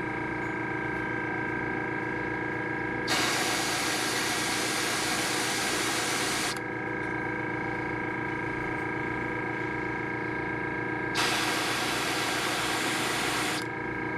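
Background music with steady notes, broken twice by a loud hiss of paint spray: once from about three seconds in for some three and a half seconds, and again near the end for about two seconds.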